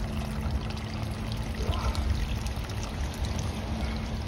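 Backed-up sewage water pouring and trickling out around a loosened PVC cleanout cap as the pressure in a clogged sewer line is let off.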